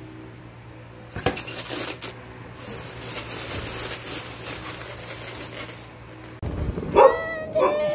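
Thin plastic bags crinkling and rustling as foam takeout containers are slipped into them and wrapped, in two stretches. Near the end a dog barks twice.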